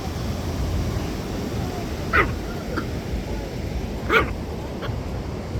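A dog barking, two short sharp barks about two seconds apart with a fainter yip after the second, over a steady low rumble of beach background.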